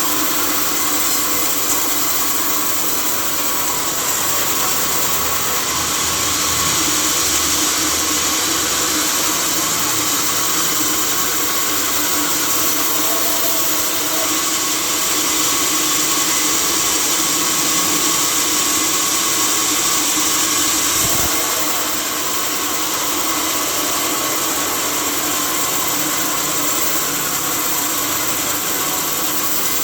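Sawmill saw machinery running steadily with a dense, unbroken hum and hiss; the level drops slightly about 21 seconds in.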